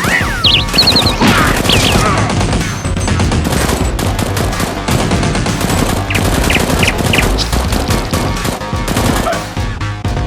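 Rapid automatic gunfire, shot after shot, over background music.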